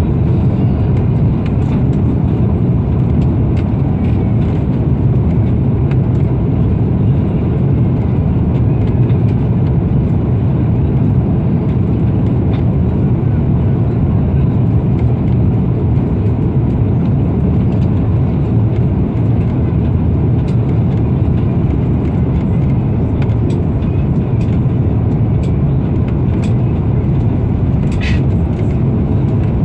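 Steady cabin roar of an Airbus A340-300 on final approach with its flaps extended, heard from a window seat over the wing: engine and airflow noise, mostly low and even. A brief faint click near the end.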